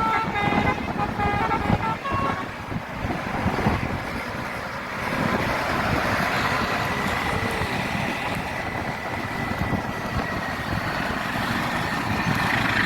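A bus's basuri musical horn playing a quick run of short notes for about two seconds, followed by the steady rumble of traffic passing.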